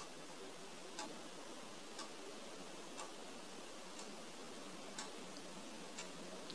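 Clock ticking, one tick a second, over a faint steady hiss.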